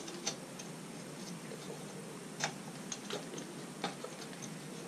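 Irregular sharp metallic clicks and taps as a repacked exhaust baffle is twisted inside the motorcycle's silencer can to line up its bolt hole. The clearest clicks come about two and a half seconds and four seconds in.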